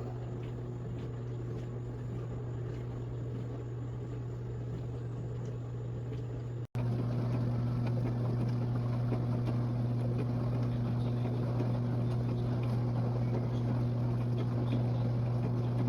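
Portable countertop dishwasher running: a steady pump hum under the hiss of water spraying inside the tub. It breaks off for an instant about seven seconds in and comes back louder.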